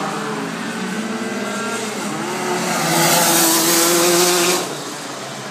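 Racing kart engines running on the circuit, several notes at once; one engine note climbs and grows loud with a rushing noise from about three seconds in as a kart comes close, then falls away near the end.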